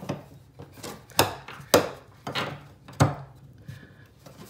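Metal shower drain grate being pressed and tapped into the drain body of a shower base: about five sharp knocks and clicks over three seconds, then quieter handling near the end.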